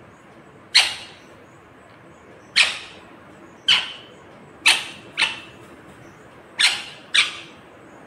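Indian ringneck parakeet giving seven short, harsh screeching calls, several in quick pairs.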